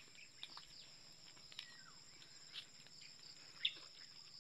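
Faint, steady high-pitched insect chorus, two unbroken tones, with a few brief chirps over it, the loudest a sharp one near the end.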